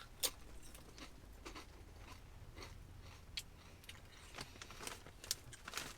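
Someone biting into and chewing Lay's Chile Mango potato chips: one sharp crunch a moment in, then faint scattered crunches as the chip is chewed.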